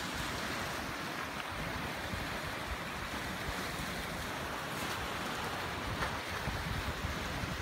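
Steady wash of sea waves breaking on a rocky shore, with wind rumbling on the microphone.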